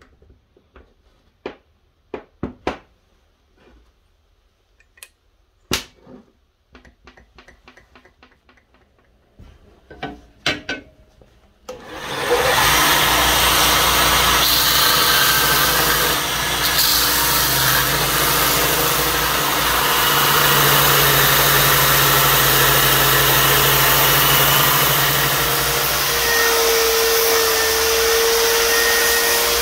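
Scattered light clicks and knocks of a metal C-clamp and wooden handle pieces being handled. About twelve seconds in, a belt grinder starts and runs steadily, sanding a wooden knife handle. Near the end the steady tone changes to a higher whine as a spinning sanding disc takes over.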